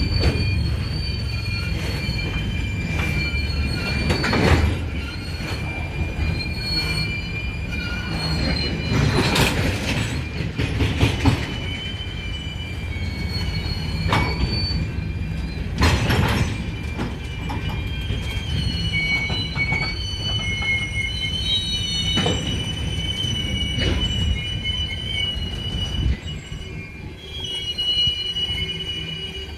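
Freight train of tank cars rolling slowly past, its wheels squealing in thin, high tones that waver and shift in pitch over a steady low rumble, with several sharp metallic clanks among the cars.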